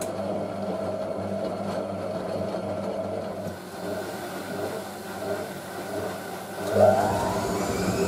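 Vintage 1986 Hotpoint 9530 washing machine's drum motor running steadily, then speeding up with a rising whine near the end as the drum goes into its slow intermediate spin between rinses.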